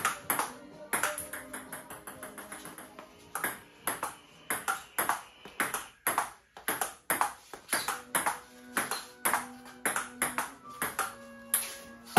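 Table tennis rally: a celluloid-type ping-pong ball clicking back and forth off paddles and the table in quick succession, with a brief lull about six seconds in and a sharper hit near the end.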